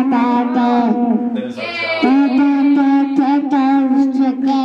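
A toddler singing long held notes into a toy microphone: two sustained notes, the second starting about two seconds in.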